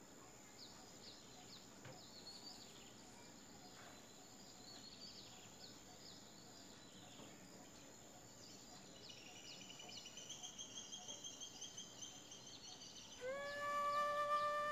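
Faint birdsong: small high chirps repeating. From about 9 s a rapid, pulsing high trill joins them. About 13 s in, a flute enters on a held note and becomes the loudest sound.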